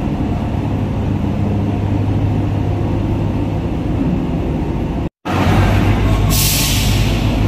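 Heavy truck's diesel engine running steadily at idle. The sound drops out for a moment about five seconds in. Near the end a hiss of released air lasts about a second, typical of a truck's air brakes.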